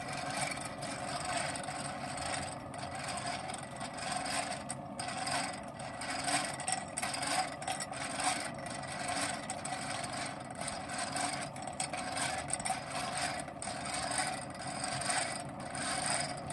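Steady running noise of a forge air blower feeding a charcoal fire, with irregular scrapes and clicks as the blade is pushed about in the coals.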